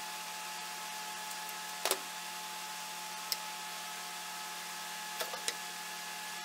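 Light clicks and knocks of a steel knife tang and wooden handle slabs being handled and set down on a workbench: one sharp knock about two seconds in, a lighter click over a second later, and two close together near the end. A steady hum runs underneath.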